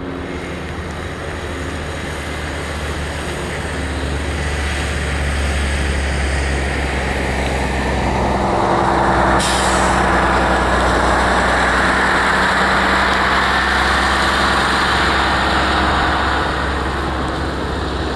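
Boeing 787-8 Dreamliner's jet engines running at taxi power: a steady low rumble with a hissing whoosh that swells about eight seconds in and eases off near the end. A short, sharp hiss sounds about nine seconds in.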